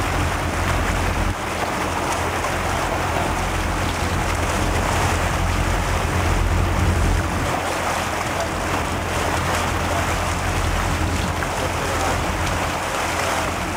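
Wind rumbling on the microphone over choppy sea water sloshing and splashing against a boat's side, steady throughout.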